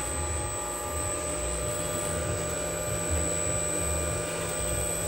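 Siemens SINAMICS drive modules running on a test bench: a steady hum and fan noise with a constant high-pitched whine over it.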